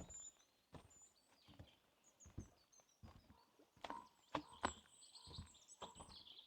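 Footsteps of a person walking on a forest path, a step a little under every second, a few louder crunching steps about four to five seconds in. Birds chirp faintly high above the steps.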